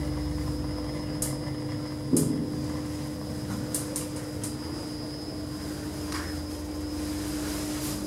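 Steady mechanical hum of a hospital lift car, with a few faint clicks and one knock about two seconds in.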